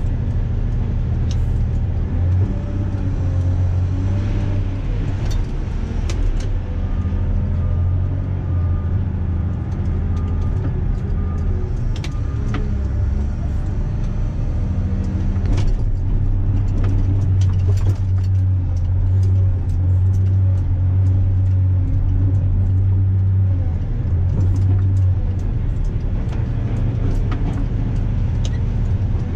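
Volvo L250F wheel loader's diesel engine running steadily under load, heard from inside the cab as a deep, even drone, with scattered knocks and rattles.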